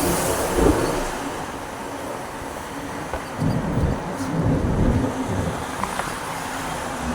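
Truck running on the road: a steady low rumble of engine and road noise, with uneven louder surges in the middle.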